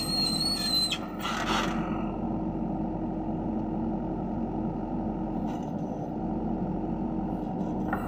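Manitou 745HTS backhoe loader's diesel engine running steadily under load as the backhoe arm digs and curls its bucket. A high steady whistle sounds in the first second, and a short hiss comes about a second and a half in.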